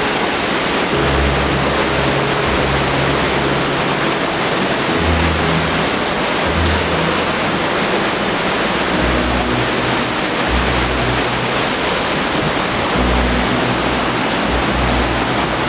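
Loud, steady rush of spring water gushing out of a cave mouth in a limestone wall and cascading over rocks, with low bass notes of background music underneath.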